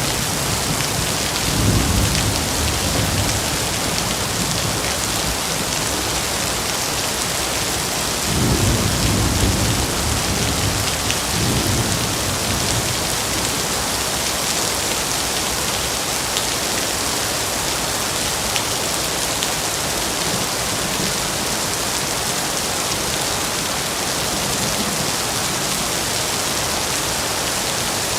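Steady rain falling in a forest, an even hiss throughout. Low rumbles of thunder swell about two seconds in and again from about eight to twelve seconds, with a faint one near the end.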